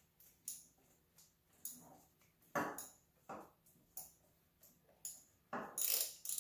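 Hand tools clinking and scraping on metal in an engine bay, as the alternator and its belt are worked on: irregular single clinks about once a second, then a louder cluster of rattles near the end.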